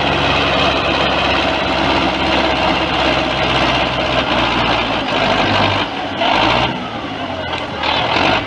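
Belarus 510 tractor's four-cylinder diesel engine running steadily under heavy load while it drags a multi-gang disc harrow through soil. Its note shifts after about five seconds, and two short noisy bursts come near the end.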